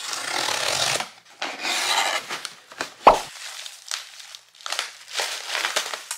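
Packaging being crinkled and torn open while unboxing a baby-bottle drying rack set, in a run of rustling bursts. One sharp knock about three seconds in is the loudest sound.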